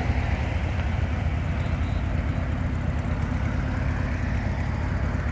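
Classic early-1960s Ford Galaxie's engine running steadily at low idle as the car rolls slowly away, its exhaust a low, even pulsing with no revving.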